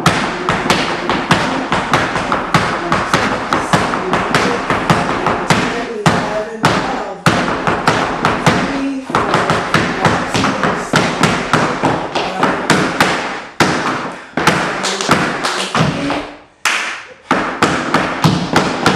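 Flamenco footwork (zapateado): heeled dance shoes stamping and tapping on a wooden floor in fast, dense runs of strikes, broken by short pauses about six, nine, fourteen and sixteen seconds in.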